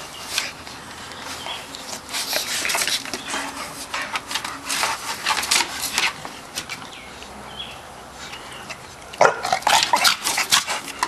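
Two dogs play-wrestling, growling and grunting in short rough bursts: one spell from about two to six seconds in, and a louder one near the end.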